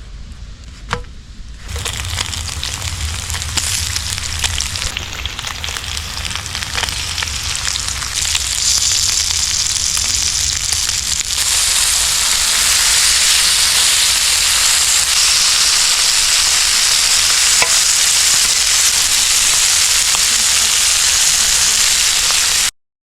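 Beef steak sizzling as it fries, starting about two seconds in and growing louder, then cutting off suddenly near the end.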